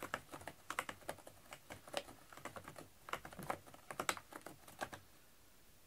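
Cat's claws raking a corrugated cardboard scratcher in irregular bursts of quick scratchy clicks, which stop about five seconds in.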